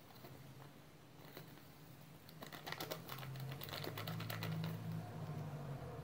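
Faint light ticking and rustling of a paper sachet as strawberry flan powder is shaken and rubbed out of it into a mixing bowl, starting about two seconds in. A steady low hum lies underneath.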